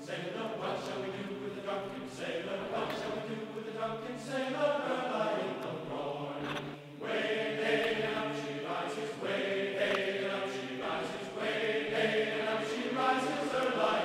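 Background music: sustained, choir-like chords that change every second or so.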